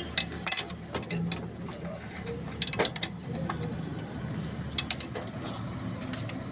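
Sharp metallic clicks and taps of a wrench on the steel fuel-line fittings of a diesel injection pump, over a steady low hum.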